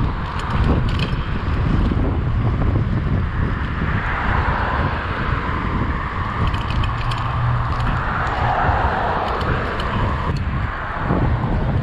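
Wind buffeting a chest-mounted action camera's microphone on a moving bicycle, with street traffic passing and swelling twice, and a few clusters of light clicks from the bike.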